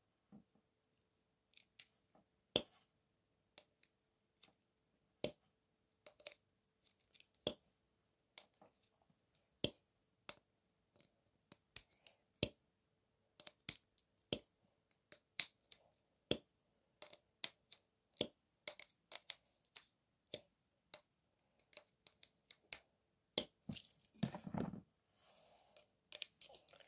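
Faint, sharp clicks at irregular intervals, roughly one a second, with a short rustling scrape near the end.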